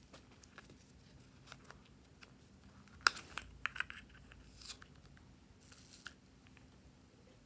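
Hard plastic toy capsule being handled and snapped open: light taps, then one sharp click about three seconds in, a few quick smaller clicks and a brief plastic rustle, and another short rustle about six seconds in.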